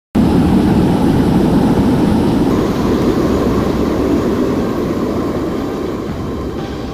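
Aircraft engine noise: a loud, steady rush that cuts in abruptly at the start and slowly fades away.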